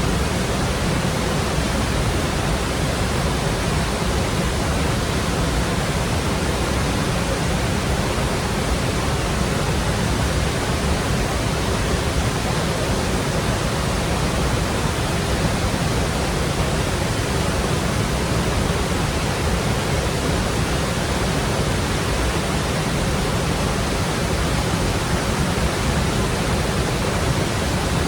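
Steady, unbroken rush of the Lechfall waterfall, river water pouring over the falls.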